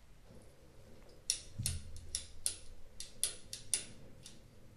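Pen writing on a paper data sheet on a clipboard: a quick run of about a dozen short, faint scratches starting about a second in, with one soft thump among them.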